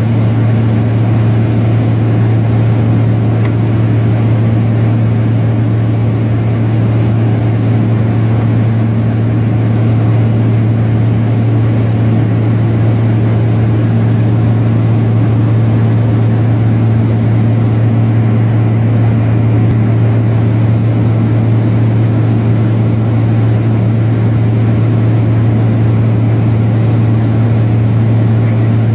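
Aircraft engines droning steadily as heard inside the cockpit on a night approach, a strong low hum over a constant rushing noise.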